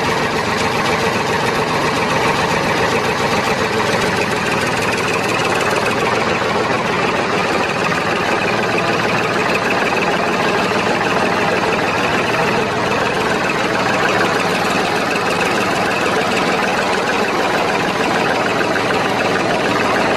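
Tractor engine running steadily, a sound effect laid over a toy tractor.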